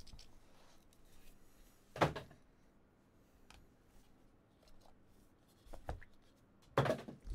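Small cardboard trading-card box being handled and opened by hand: a sharp knock about two seconds in, light taps and rustling as the lid is lifted off and the cards are taken out, and another bump near the end.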